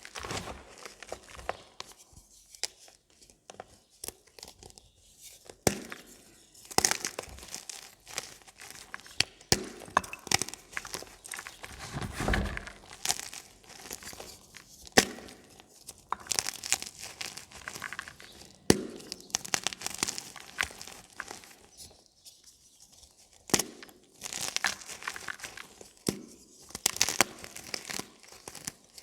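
Gym chalk being crushed and crumbled: irregular crunching and crackling with sharp snaps, coming in spells with brief pauses between them.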